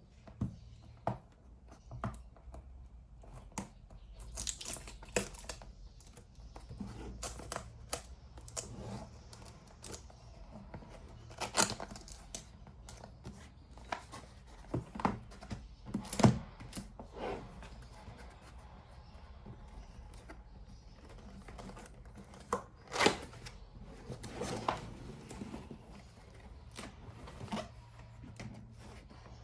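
Keyboard packaging being unboxed: tearing and crinkling of wrapping, with irregular knocks and clicks as the box and its contents are handled. The loudest knock comes about sixteen seconds in.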